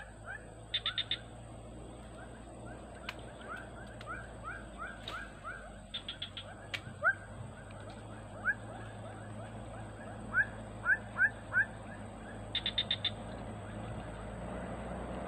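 Wild birds calling over a steady outdoor background: runs of short, rising whistled notes, several a second, broken now and then by a quick burst of high rapid notes.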